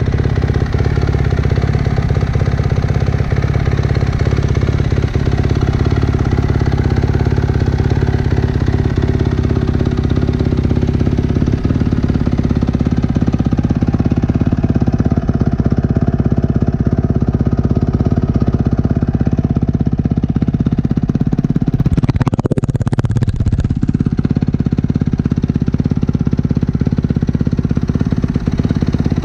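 2018 Kawasaki KX250F single-cylinder four-stroke engine idling steadily through a full Yoshimura exhaust system.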